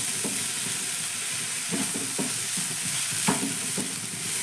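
Grated cabbage, carrot and potato sizzling in hot oil in a pan while being stirred, with a few short scraping strokes against the pan over a steady frying hiss.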